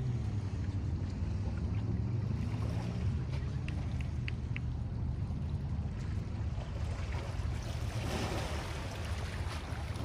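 Small waves lapping against shoreline rocks, with a fuller splash about eight seconds in, over a steady low rumble. Four short high chirps sound around four seconds in.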